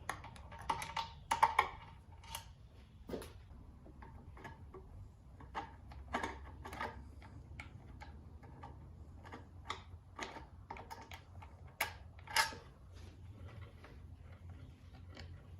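Irregular metallic clicks and clinks of hand tools working out the bolts of an outboard motor's exhaust cover, with a small cluster of louder clicks about a second in.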